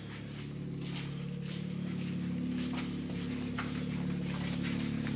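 A steady mechanical hum with several fixed tones, slowly growing a little louder, with a few faint clicks.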